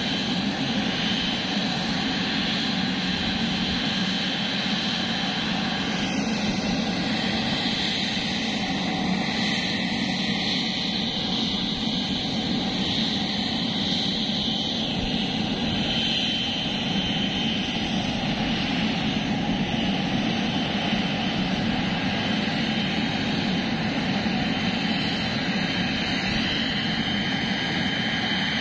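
Jet engines of a Boeing 777-300ER (GE90-115B) running steadily, with a high whine over a low rumble that shifts pitch slightly a few times.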